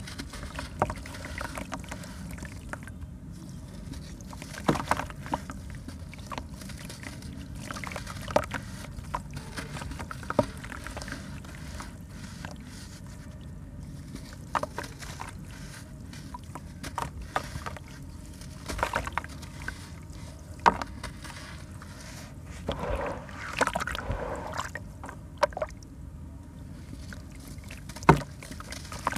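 Charcoal sand cement block crumbled by hand over a tub of water: grit and small pieces break off with sharp crunches and drop into the water in scattered splashes and patters. The loudest splash comes near the end.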